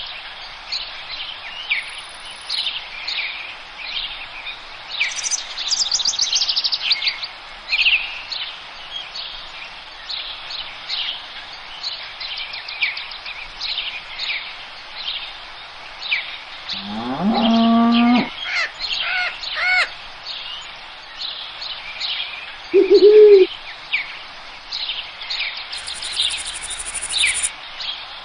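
Dense chorus of forest songbirds chirping and trilling. About 17 seconds in, a low, drawn-out animal call rises slightly in pitch for about a second and a half. Around 23 seconds comes a short, louder low call.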